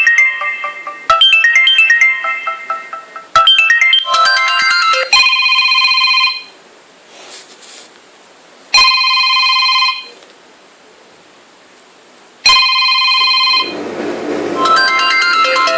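Samsung Galaxy Tab 2 ringtones playing one after another. A quick repeating tune of short notes gives way, about five seconds in, to an electronic ring sounding three times, about a second each with pauses between. Near the end another melodic ringtone begins.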